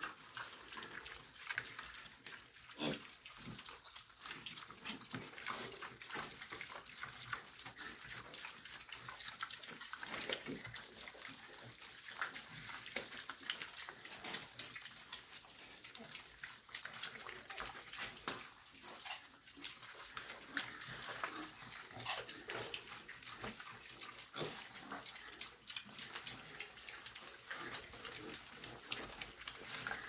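A group of young pigs eating at a trough: a dense, steady run of chewing smacks and slurps, with a few grunts.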